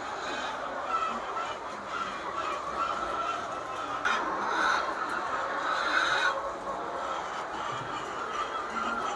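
Flock of chickens clucking and calling together in a dense, continuous chorus, with a few louder calls standing out midway.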